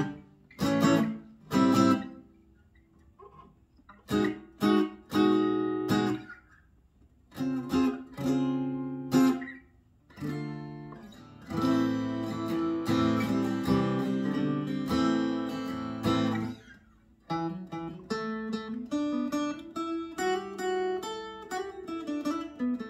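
Fender Acoustasonic Player Telecaster, plugged in, being played: a few strummed chords with short pauses between them, then a stretch of steady strumming about halfway through, and picked single notes near the end.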